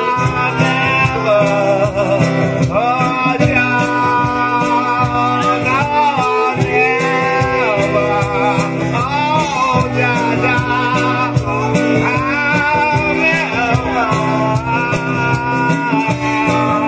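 Live reggae band playing an instrumental break: a harmonica solo with notes that slide and bend, over a steady acoustic guitar and bass groove and a regular hand-percussion beat.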